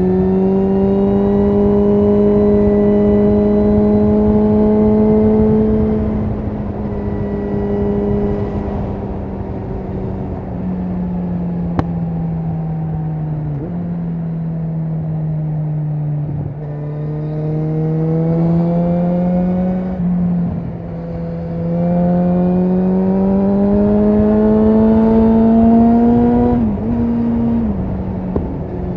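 Kawasaki Versys 1000's 1043 cc inline-four running through an Akrapovic carbon exhaust with the dB killer and catalytic converter removed, heard from the rider's seat on the move. The pitch rises slowly for the first six seconds, eases off and falls through the middle, then climbs twice more, with short drops in pitch about two-thirds of the way in and near the end.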